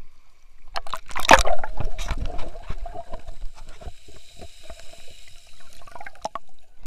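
Sea water splashing as an action camera is plunged under the surface about a second in, then muffled underwater sloshing and gurgling with many small clicks and a faint steady hum.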